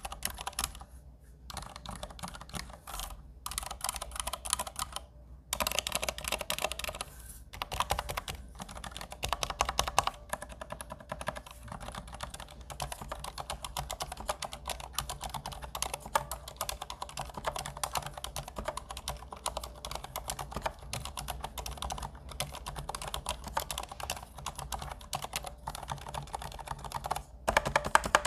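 Fast, continuous typing on a mechanical keyboard with Cherry MX Silent Red (low-noise linear) switches, a rapid run of muted key clicks broken by a few short pauses in the first several seconds and one near the end.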